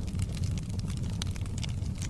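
Wood fire burning in a fireplace: a steady low rumble of flame with frequent sharp crackles and pops of burning logs.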